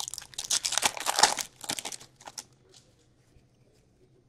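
A hockey card pack's foil wrapper being torn open and crinkled as the cards are pulled out, a dense rustling for about two and a half seconds that then dies away to near quiet.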